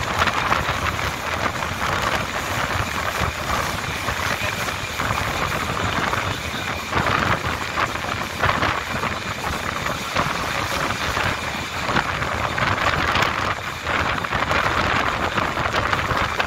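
Diesel passenger train running at speed: a steady rushing noise of wheels on rails and moving air, with irregular rattles.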